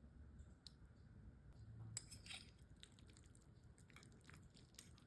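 Faint scattered clicks of a fork against a dish, with soft wet squishing of creamy spaghetti, busiest about two seconds in and again near the end.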